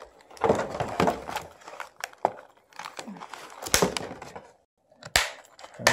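Plastic and cardboard toy packaging rustling and crinkling in irregular bursts, with a few sharp clicks and snaps, as a Barbie doll and its outfit pieces are pulled free from the box.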